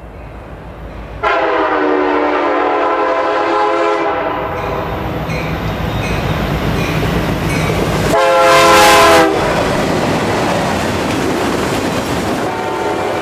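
Horn of a CN EMD SD75I freight locomotive sounding a long blast of nearly three seconds, then a second, shorter and louder blast about four seconds later, over the steady rumble of the diesel engines and rolling wheels. Near the end, autorack cars roll past with wheel clatter.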